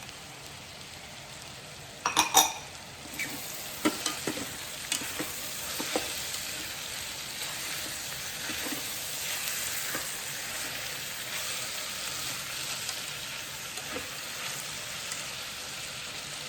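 Chopped vegetables sizzling in oil in the inner pot of an Instant Pot on sauté, with a utensil knocking and scraping against the pot as they are stirred. A loud metallic clatter comes about two seconds in, and the sizzle grows fuller after about three seconds.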